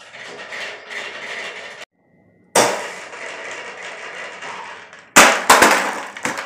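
A child's clear plastic dome toy with loose balls inside, rattling and clattering as it is handled. About five seconds in come several loud, sharp plastic knocks close together.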